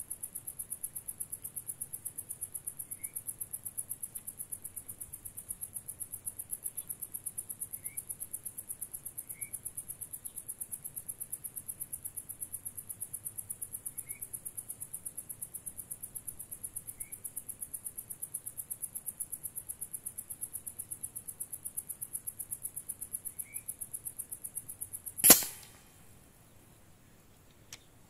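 Single shot from a Boito Urutu 931 PCP air rifle in 5.5 mm, a sharp report about 25 seconds in and the loudest sound here. Before it a high, fast-pulsing buzz runs on with a few faint short chirps, and the buzz stops right after the shot.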